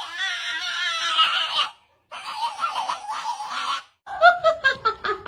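People laughing in three short stretches split by brief silences, the last a quick run of ha-ha pulses.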